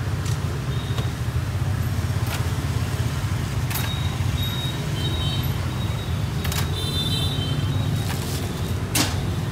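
Busy street-market background: a steady low rumble like nearby traffic, with a handful of sharp clacks of things being set down, the loudest near the end.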